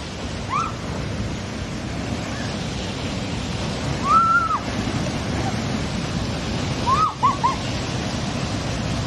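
Steady rush of a waterfall. A few short high-pitched calls sound over it: a longer arched one about four seconds in, and three quick ones around seven seconds.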